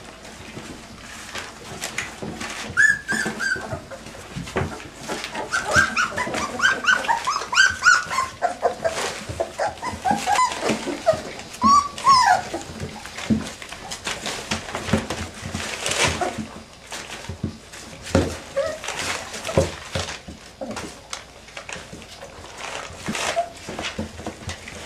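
A litter of puppies whimpering and squealing: many short, high cries that bend up and down and overlap, densest in the first half, with scattered knocks and rustling between them.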